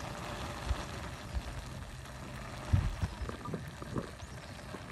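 Ramen broth boiling in a pan on a camp stove: a steady bubbling hiss, with a few dull low thumps, the loudest about three seconds in.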